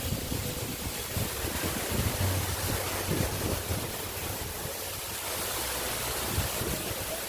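Steady rushing of a waterfall, with wind buffeting the microphone in irregular low gusts.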